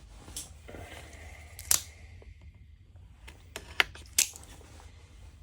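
Sharp clicks and light rustling of a knife's cardboard box and packaging being handled and opened: one loud click a little under two seconds in, then two more in quick succession near the four-second mark.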